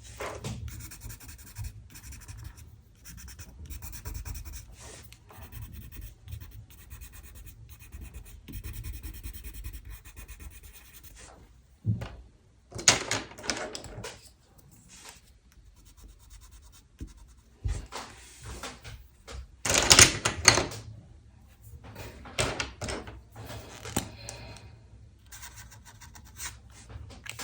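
Drawing strokes on paper: scratchy, rubbing strokes in irregular bursts of about a second each, over a low steady hum.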